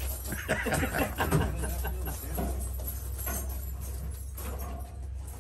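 People talking indistinctly over a steady low hum, with no gunfire.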